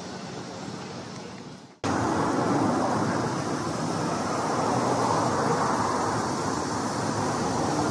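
Steady traffic noise that drops out abruptly about two seconds in and comes back louder, as at an edit from one street scene to another.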